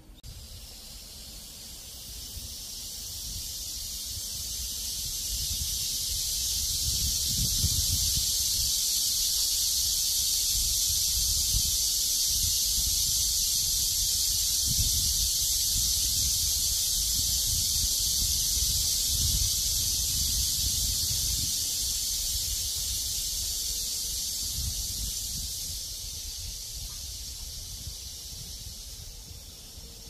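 Cicadas calling in chorus: a loud, high, steady hiss that swells over the first several seconds and fades away near the end. Wind gusts rumble on the microphone underneath.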